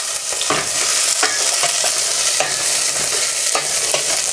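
Onion and fennel seeds frying in hot oil in a pan, sizzling steadily, while a spatula stirs and scrapes the pan with short strokes every half second or so.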